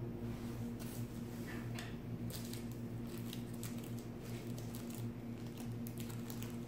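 A steady low hum with faint scattered clicks and rustles over it.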